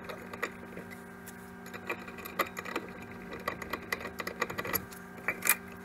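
Scattered small clicks and taps from hands and a screwdriver working the wiring at a dishwasher's electrical connection box, over a steady low hum.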